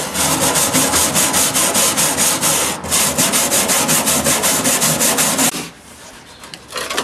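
Hand wire brush scrubbed quickly back and forth over the rusty steel floor of a Jeep CJ-5's stripped tub, about four or five strokes a second. There is a brief break about three seconds in, and the scrubbing stops about five and a half seconds in.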